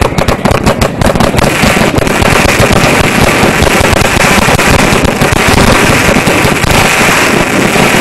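Large ground fireworks fountain firing at close range: a rapid string of sharp cracks for about the first second and a half, then a loud, steady rushing hiss with crackle as it throws a column of sparks.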